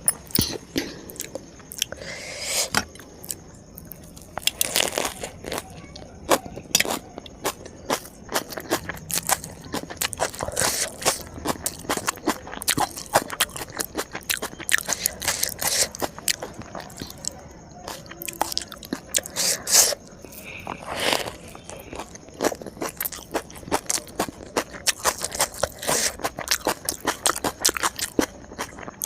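Close-miked crunching and chewing of crisp food, with many sharp crackling bites and wet mouth sounds in an irregular stream.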